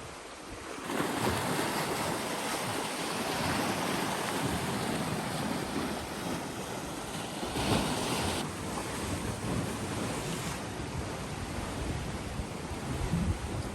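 Sea waves washing and surging, with wind buffeting the microphone; the rush swells about a second in and is strongest for a moment around the middle.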